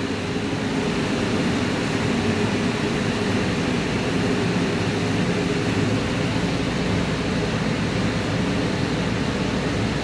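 Steady mechanical drone: a low hum under an even rushing noise from machinery running in the background.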